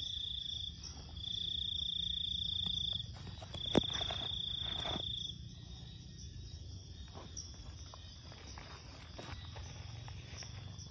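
A cricket trilling, one steady high note in three long spells that stop about five seconds in, leaving only faint scattered chirps. A single sharp click sounds about four seconds in.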